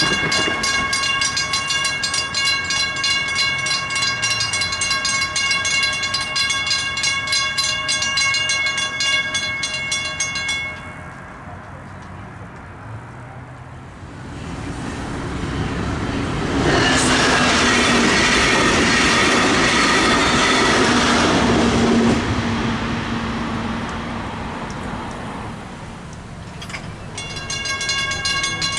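Mechanical railroad crossing bell ringing with rapid, even strokes, falling silent about ten seconds in while the gates are down. A train then passes over the crossing with a loud rushing rumble and a low hum, and the bell starts ringing again near the end as the gates begin to rise.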